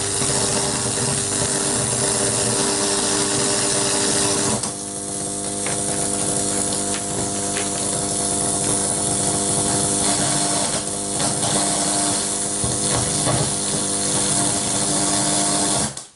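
Noise from a TPA3116D2 class-D amplifier board through its speakers: a loud hissing buzz with steady hum tones and scattered pops and crackles. It eases slightly about four and a half seconds in and cuts off suddenly near the end. It is interference on the amplifier's inputs, which the owner suspects comes from grounding and ground-loop problems or an unstable module.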